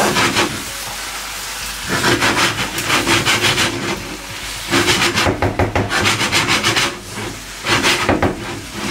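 Thick koottu curry being stirred and mashed in a pan: the utensil scrapes against the pan in quick, rapid strokes. The strokes come in bursts with short pauses between them.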